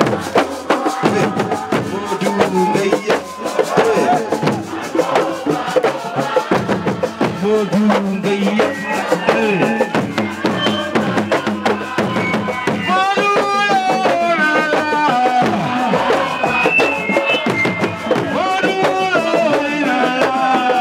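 Music of fast drumming with singing voices over it.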